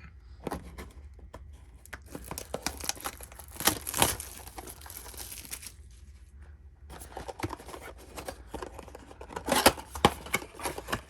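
A trading-card blaster box being opened by hand: its wrapping and cardboard packaging tearing and crinkling in a run of sharp crackles and rustles. The loudest tearing comes about four seconds in and again near the end, with a short pause in between.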